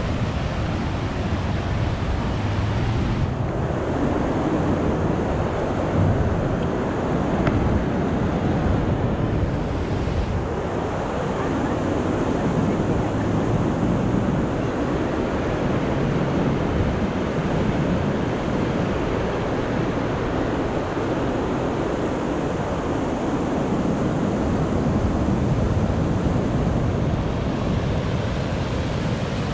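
Steady rush of fast-flowing water, with wind buffeting the microphone; the sound shifts slightly about three seconds in.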